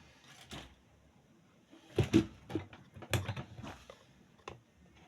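Several sharp clicks and knocks from small parts being handled on a workbench, with the loudest cluster about two seconds in and another about three seconds in.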